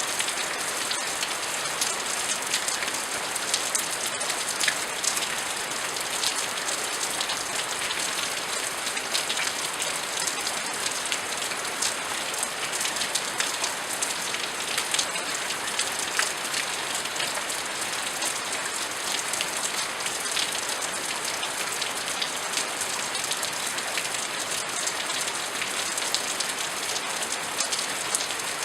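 Steady rain falling on hard surfaces, a dense patter of individual drops over an even hiss, with no thunder.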